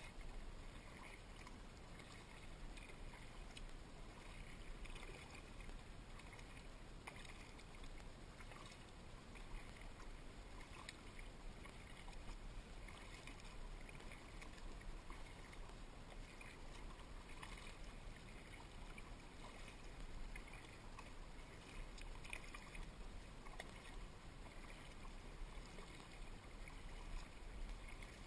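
A kayak being paddled on calm creek water: soft, recurring paddle dips and drips over a faint steady hiss.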